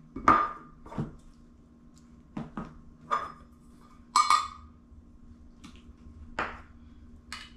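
Metal spoon and stainless steel measuring cup clinking and knocking as cottage cheese is scooped and measured out: about nine light, separate knocks, the loudest about four seconds in, some with a short metallic ring.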